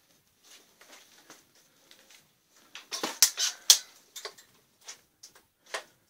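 Irregular crackles and clicks of handling and movement in a cluttered space, with a denser, louder run of crackling about three seconds in.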